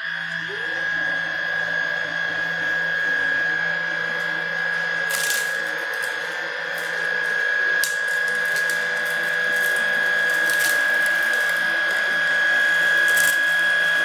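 Viomi A9 cordless stick vacuum with its motorised floor brush switching on: the motor whine rises quickly to a steady high pitch over a hiss of suction. A few sharp ticks come through as grit is drawn up the nozzle.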